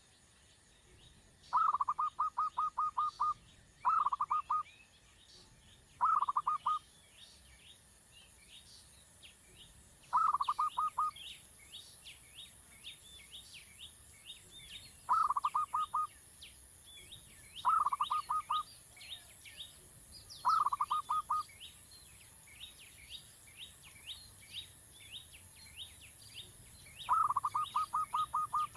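Coucal chick calls: eight short rattling bursts of rapid pulses, each under a second long, repeated every few seconds. A constant scatter of thin, higher chirps and a steady high hiss run underneath.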